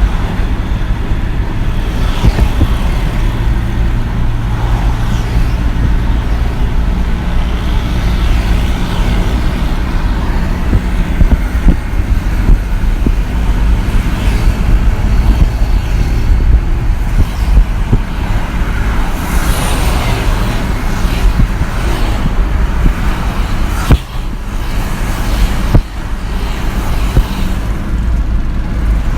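Road traffic on a two-lane road: vehicles passing in both directions, a continuous rumble of engines and tyres with brief lulls between passes.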